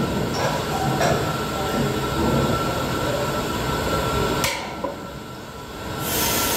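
Steady machinery noise in a nitrogen cylinder-filling station, with a few metallic clicks. The noise drops away about four and a half seconds in, and a high, even hiss of gas starts near the end.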